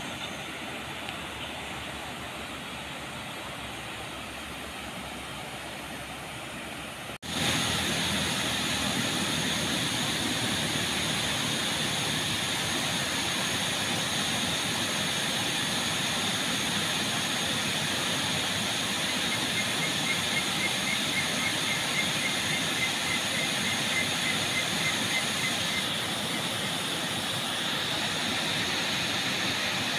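Steady rush of flowing river water, then, after a cut about seven seconds in, the louder steady roar of a waterfall pouring into a pool.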